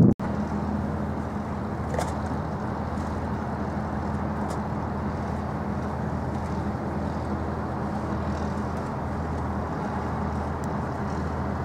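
Steady low drone of the ferry MV Normandie's engines and machinery heard on board, an even hum with a haze of wind and water noise over it.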